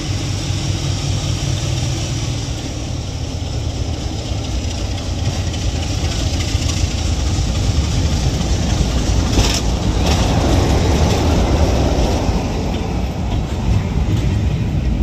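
Diesel train running into a station, its engine rumbling with rail noise and growing louder as it comes closer. There is a short sharp burst of noise about two-thirds of the way through.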